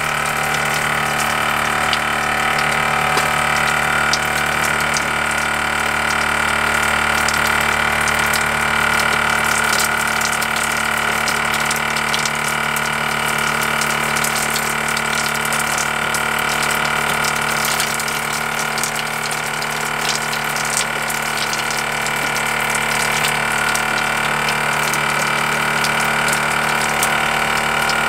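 Small electric water pump running steadily with an even hum, feeding the shower, over the hiss and splash of shower water.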